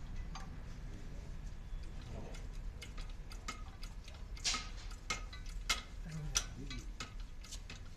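Hydraulic bottle jack being pumped by its lever handle under a railway coach bogie, giving irregular metallic clicks and knocks roughly two a second, louder in the second half, as it lifts the bogie frame.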